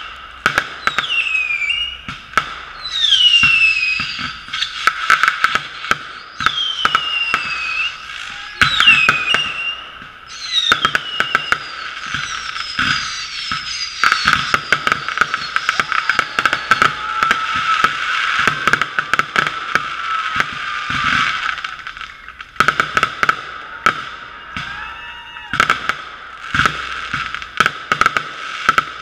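Fireworks display: many sharp bangs and crackles, with several falling whistles in the first ten seconds and a dense run of crackling in the middle. It sounds thin and muffled, heard through a GoPro's sealed waterproof housing.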